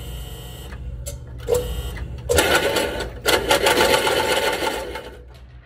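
Electric target carrier motor whining and its trolley rattling along the track as the lane switch is held. It runs in two short spurts, then steadily for about three seconds before stopping near the end.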